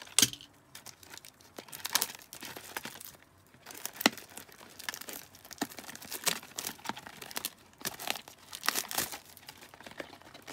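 Plastic wrapping on a trading-card box crinkling and tearing as it is pulled off and handled, in irregular crackles with a few sharper snaps.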